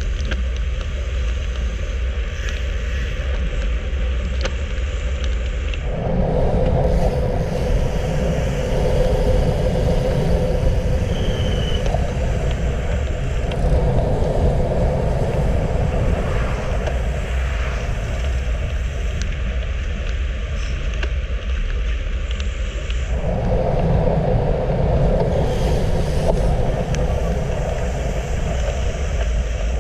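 Wind rushing over a handlebar-mounted camera's microphone with tyre and road hum from a road bike at about 35 km/h. The noise is a steady low rumble, joined by a harsher midrange rush that starts abruptly about six seconds in, drops out a little before twenty seconds and comes back a few seconds later.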